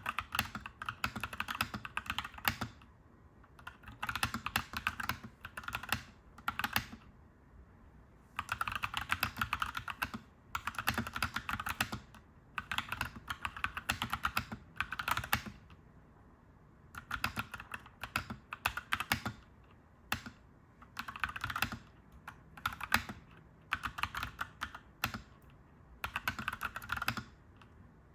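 Clacky mechanical keyboard being typed on in quick bursts of a second or two, with short pauses between them.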